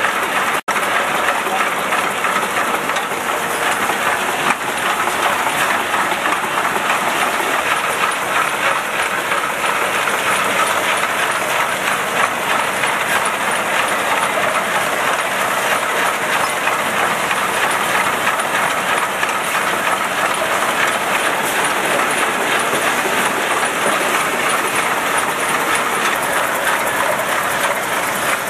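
Gernep Labetta rotary bottle-labelling machine running on a production line: a loud, steady mechanical clatter of many fast fine clicks. The sound cuts out for an instant about a second in.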